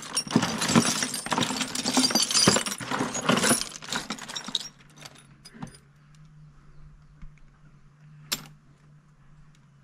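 Loose metal bolts and screws clinking and rattling as a hand rummages through them, for about four and a half seconds. Then it goes much quieter, with a low steady hum and a single sharp click near the end.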